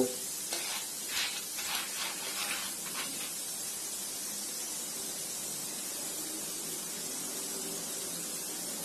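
Popcorn kernels heating in hot oil in a pan on a high gas flame, giving a steady low sizzle before any popping has begun. There are a few short stirring scrapes in the first three seconds.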